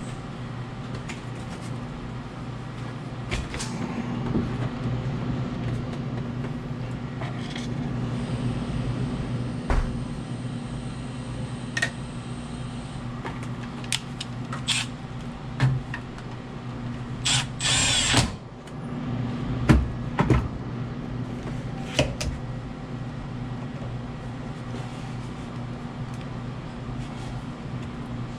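Hands working inside an ice machine: scattered knocks and clicks of tools and metal parts, with a short rasping burst a little past halfway, over a steady low hum.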